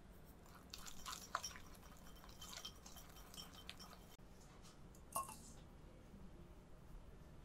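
Wire whisk working a soft butter mixture in a ceramic bowl: quiet squishy strokes with light clinks of the wires against the bowl. A single sharper clink comes a little past halfway.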